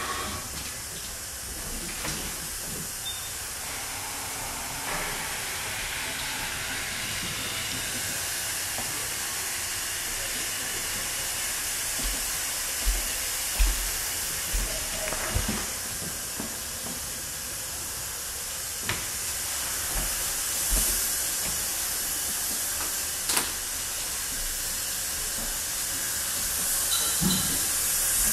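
Steady hiss of room tone, with a few soft low thumps as the camera is carried through the rooms.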